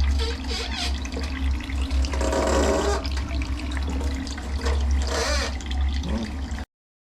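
Water from a small battery-powered aquarium pump running out of a thin hose and splashing, in a steady wash that swells louder twice, with a low steady hum underneath. It cuts off suddenly near the end.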